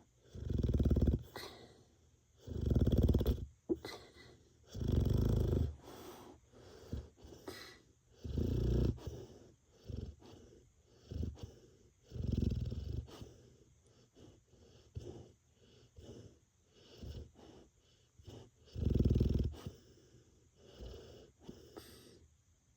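Labrador Retriever snoring in its sleep: about six loud, deep snores, each lasting about a second and coming irregularly every few seconds, with softer snoring breaths between them.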